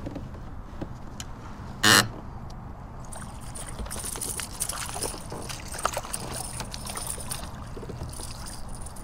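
A hooked white bass thrashing and splashing at the surface beside a kayak, with many small clicks and rattles of tackle. A brief loud rush of noise about two seconds in is the loudest sound.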